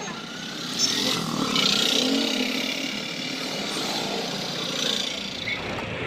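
A motor vehicle engine running, like a motorcycle.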